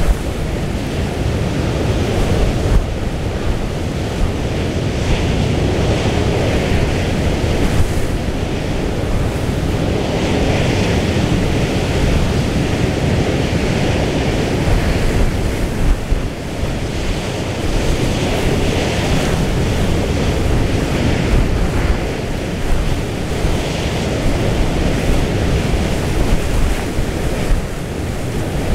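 Strong storm wind buffeting the microphone in gusts over the steady rush of a rough sea with breaking waves.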